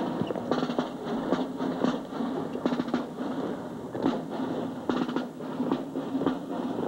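A marching drum line of snare drums and a bass drum playing a cadence on the march, sharp drum strokes coming in quick clusters.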